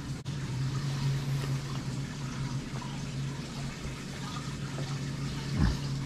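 Indoor room tone: a steady low hum over a background hiss, with a short falling whoosh near the end.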